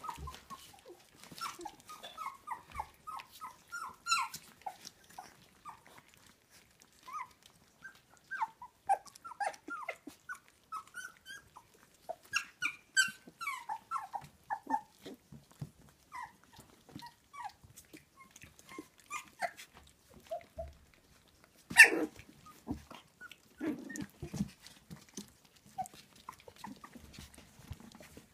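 Young puppies whimpering and squeaking in many short, high cries while they eat dry kibble from a steel bowl, with small clicks and crunches throughout. A louder knock comes about three-quarters of the way in.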